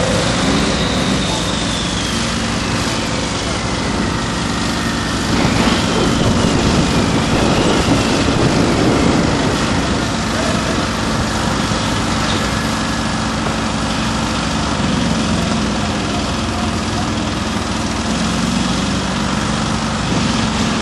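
Fire brush truck engine running steadily, with a faint high whine that slides down in pitch a couple of times in the first half.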